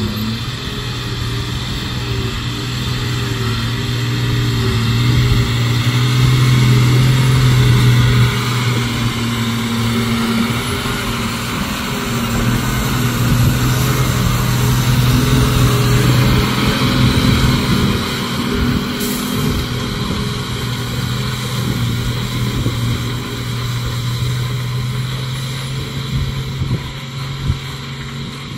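Tata 3718 tipper truck's diesel engine running steadily as the truck creeps over a rough dirt track. The engine note swells louder about a quarter of the way in and again near the middle, then eases off a little toward the end.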